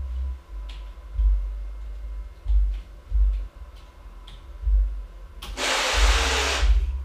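Hangprinter's cable-winding stepper motors moving the effector: a low hum that comes and goes in pulses, with a few faint ticks. About five and a half seconds in, a loud rushing noise lasts a little over a second.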